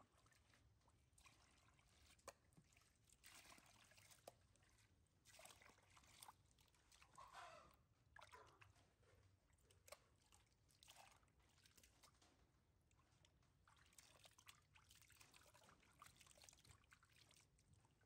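Faint water pouring and trickling in several separate splashes, as water is scooped with a plastic dipper and poured over a newborn monkey being bathed.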